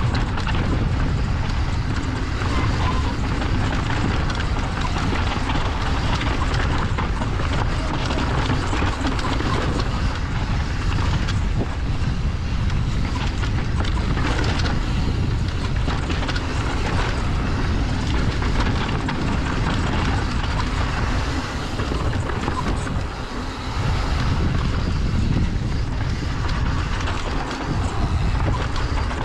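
Wind buffeting the microphone and a mountain bike's tyres and frame rattling over dirt and rock on a downhill run, steady and loud, with a brief lull about three quarters of the way in.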